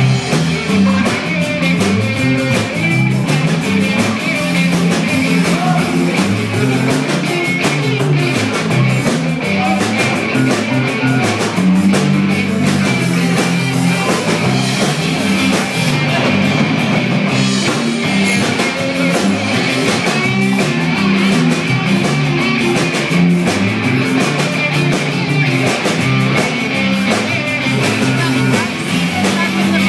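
Live band playing a rock song at full volume, with electric guitar over a drum kit.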